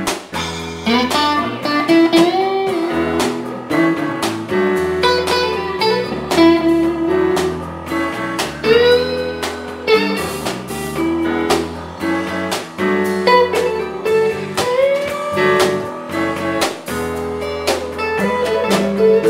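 Live blues band playing: a guitar lead with bending, sliding notes over a steady bass line, drums and keyboards.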